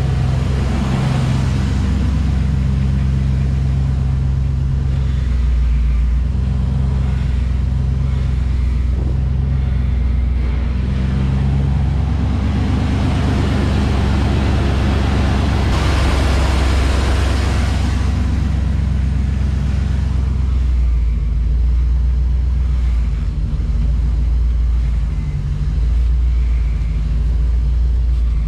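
1993 Ford SVT Lightning's 5.8-litre V8 running at idle, steady throughout, with the noise swelling for a few seconds around the middle. The truck is running to check the freshly repaired power steering, a new line just fitted and fluid topped up.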